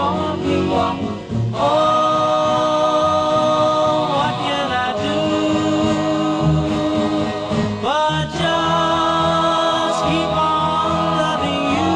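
1958 doo-wop record: a male vocal group singing long held harmony chords that change every few seconds.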